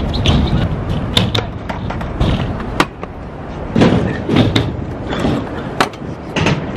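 Stunt scooter wheels rolling on concrete, with several sharp clacks as the scooters' decks and wheels hit the ground during tricks.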